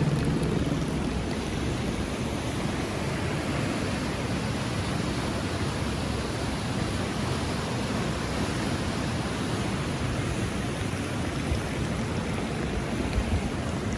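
Steady rushing of flowing mountain water, an even, unbroken noise.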